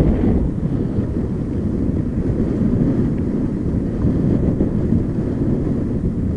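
Wind rumbling steadily on a bike-mounted action camera's microphone, under the noise of the mountain bike rolling slowly over a gravel track.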